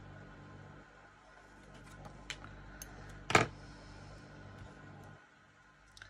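A few light taps and one much louder, sharp clack a little over three seconds in, from craft supplies being handled on a tabletop, over a steady low hum.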